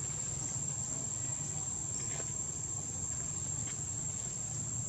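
Steady high-pitched drone of insects, one unbroken tone, over a low outdoor rumble.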